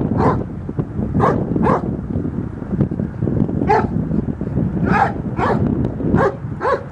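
A German shepherd-type dog barking repeatedly while straining at the end of a leash tied to a post, about eight sharp barks in irregular clusters with a short pause near the middle.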